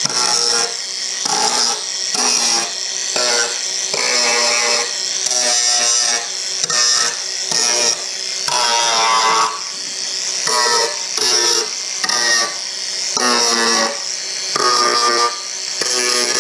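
Background music: a melody of separate held notes over a steady high-pitched hiss, starting abruptly.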